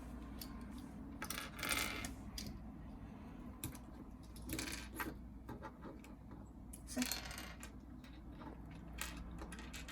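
Plastic pieces of a 5x5 Rubik's cube clicking and clattering as they are handled and pushed into the partly built cube: three short clattery bursts with scattered light clicks in between.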